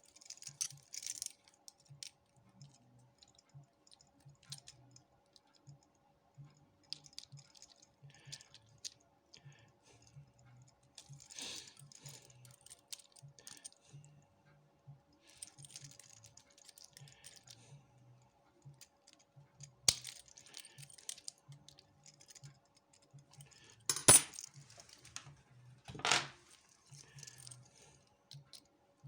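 Small metal clicks, scrapes and clinks of a Jedo 5-pin rim cylinder being taken apart by hand with small tools, working at the circlip and plug. Three sharper metal clacks stand out in the second half.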